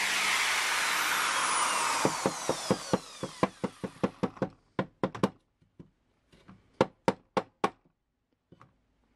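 Drill press motor running, then switched off and spinning down with a falling whine over about three seconds. Over the spin-down and after it, a wooden burl blank knocks sharply against the drill press table: a quick run of knocks, then a few sparser ones that stop about eight seconds in.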